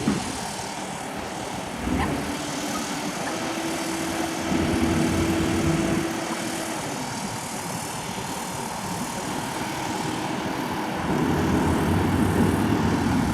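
A steady engine drone over background noise, swelling in loudness about four seconds in and again near the end.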